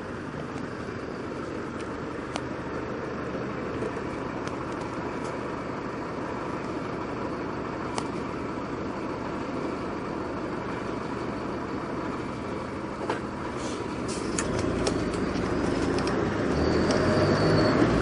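Street traffic heard from a moving bicycle, mainly a lorry's engine running just ahead, with a low rumble that grows louder near the end. A few sharp clicks are scattered through it.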